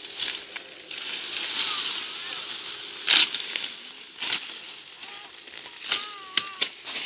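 Sugarcane stalks being broken off by hand among dry cane leaves: the leaves rustle and crackle, with sharp snaps of the cane. The loudest snap comes about three seconds in, and a quick run of several more comes near the end.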